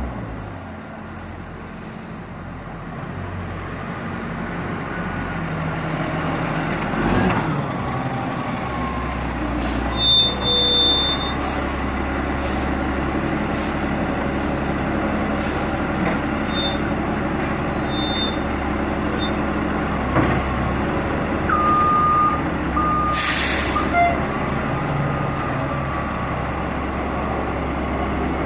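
Front-loading garbage truck's diesel engine running as the truck moves up and lifts a dumpster over its cab. There are a few brief beeps, and about four-fifths of the way through comes a short burst of air hiss from the truck's air brakes.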